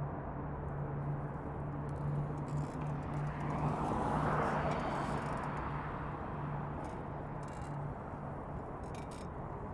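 Steady vehicle hum with road and traffic noise, a low drone running throughout, and a rush of noise that swells and fades about four seconds in.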